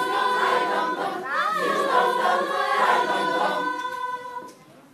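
Choir singing, closing on a long held chord that dies away near the end.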